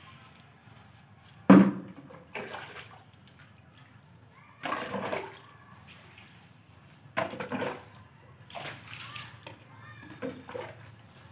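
Water thrown from a plastic bucket splashing onto the ground as a yard is washed down, in about six separate splashes; the loudest, a sharp one, comes about a second and a half in.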